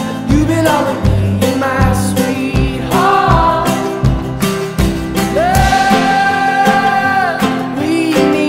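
Background music: a pop song with a steady drum beat and singing, including one long held note a little past halfway.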